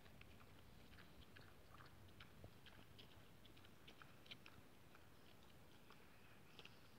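Faint, irregular crunching clicks of a wild boar tearing and chewing grass as it grazes.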